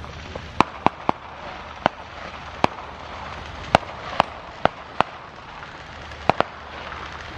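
Fireworks going off: about eleven sharp bangs at irregular intervals, some in quick pairs, over a steady background hiss.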